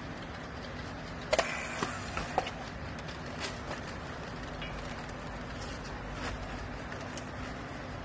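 Steady low machine hum, with a cluster of sharp clicks and knocks about a second and a half in and a few fainter ticks later, as a handheld battery strapping tool is worked along plastic baling strap.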